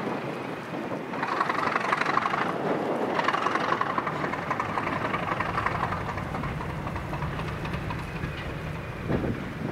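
A diesel locomotive working a train on a heritage line, heard as a continuous rushing engine noise that swells twice in the first few seconds and then settles into a steadier low drone.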